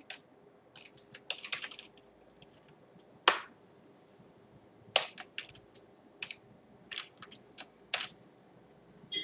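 Irregular keystrokes on a computer keyboard: a quick flurry about a second in, one sharper, louder stroke a little after three seconds, then scattered single key clicks.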